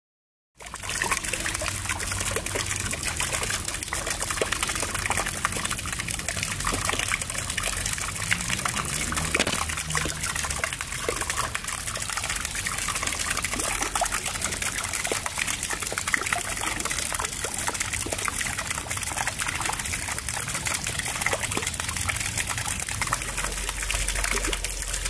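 Garden fountain's water jet splashing steadily into its stone basin, an even, continuous splashing that starts abruptly about half a second in.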